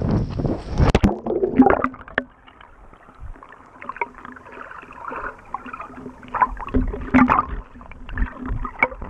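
Sea water splashing over an action camera, then the sound goes suddenly muffled about a second in as the camera goes underwater: dull underwater gurgling and knocking of water moving around the camera.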